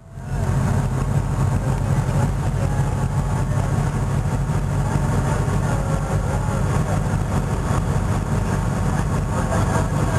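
Boat engine running steadily at low speed, a constant low hum.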